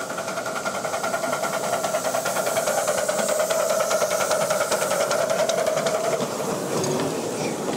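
Locomotive running with a rapid, even clatter over a held tone, growing louder over the first few seconds and easing off a little about six seconds in.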